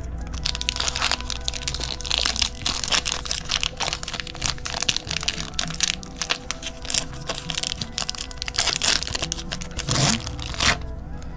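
Foil booster pack wrapper crinkling and crackling as it is handled, a dense run of small crackles with a few louder bursts.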